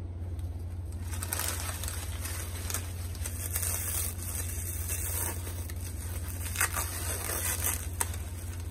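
Brown kraft packing paper and white tissue wrap rustling and crinkling as hands dig through it and lift out a potted plant, with a few sharper crackles in the second half. A steady low hum runs underneath.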